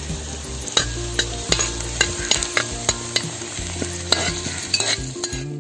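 Green chillies, curry leaves and whole spices sizzling in hot oil in a wide metal pan, with a metal spatula stirring them and clinking and scraping against the pan in many short, irregular strokes.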